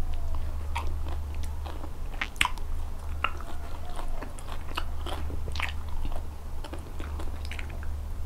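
Close-miked eating of raw blue swimming crab and shrimp in spicy papaya-salad sauce: wet clicks of fingers picking through the plate, then biting and chewing with scattered crunches of shell. A steady low hum runs underneath.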